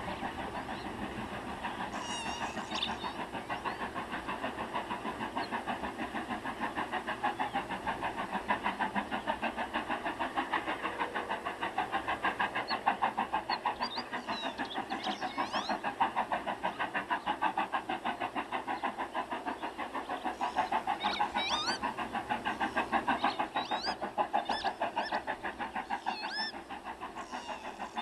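Model steam locomotive with a sound decoder, chuffing in a fast, even rhythm as it runs, with short high squeaks now and then.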